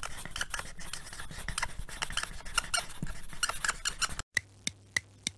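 Pencil scribbling on paper, a dense run of scratchy strokes. About four seconds in it cuts off and gives way to sharp clicks, about three a second.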